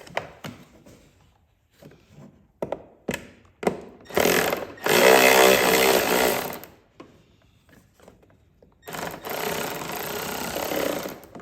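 Power drill running in two bursts, driving screws into the sled's plastic air box, with a few handling clicks and knocks before it.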